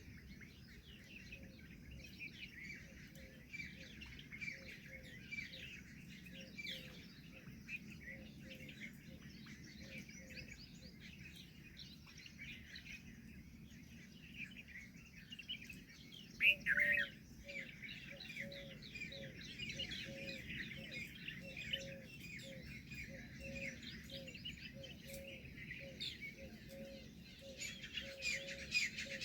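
A chorus of many small birds chirping and twittering together. Under it, a short low note repeats steadily about twice a second, and one louder call stands out a little past halfway.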